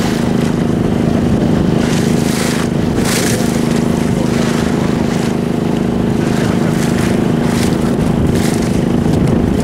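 A boat's engine running steadily with a constant drone, while water rushes and splashes against the hull in brief surges a few times.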